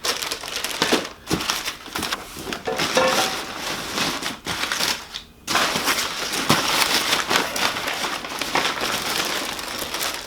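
Plastic parts bags being handled and rummaged through, crinkling and crackling in irregular bursts, with a short lull about halfway through.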